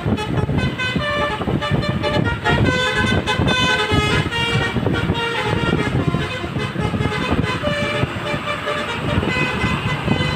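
Musical multi-tone vehicle horns, telolet and basuri horns, playing a fast melody together. Stepped notes change several times a second over a continuous low engine and traffic rumble.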